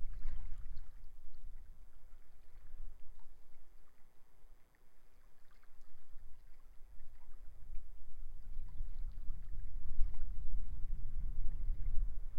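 Strong wind buffeting the microphone in gusts, easing off about a third of the way in and rising again after about eight seconds, over sea waves washing and lapping at the shore.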